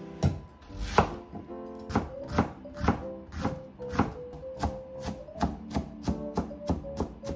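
Chef's knife chopping an onion on a cutting board: sharp knocks of the blade on the board, about two a second at first, quickening to about three a second as the onion is minced finely. Soft background music underneath.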